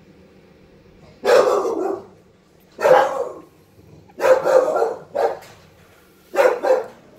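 A dog barking, a series of loud barks about a second apart.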